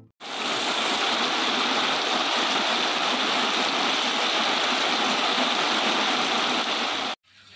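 Steady heavy rain falling through trees, an even hiss that cuts off suddenly near the end.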